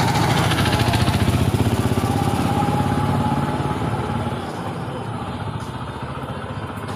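An engine running steadily, in the manner of a motorcycle idling, getting somewhat quieter after about four seconds.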